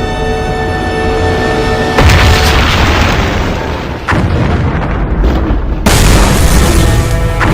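Film score with held orchestral tones, broken about two seconds in by a sudden deep boom. Further heavy booms follow around four and six seconds in over the music: monster-movie impact or explosion effects.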